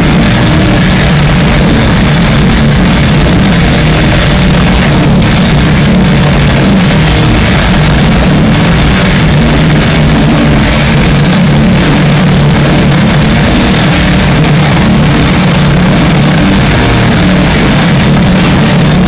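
A heavy rock band playing live at concert volume, recorded on a phone whose microphone is overloaded. The sound is distorted and muddy, a continuous smear heavy in the low end.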